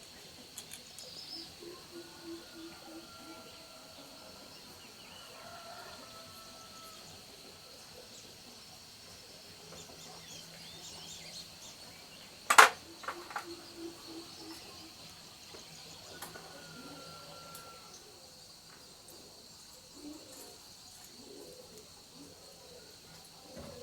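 Steady high insect drone with occasional bird calls. A single sharp knock about halfway through is followed by a few lighter clicks.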